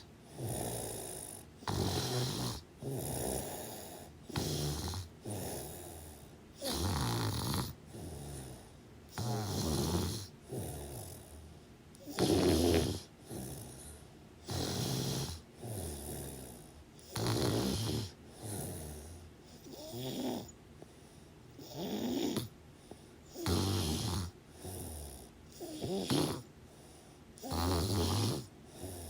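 Snoring in a steady rhythm: short snores, each under a second, come about every one to one and a half seconds, with quiet gaps between breaths.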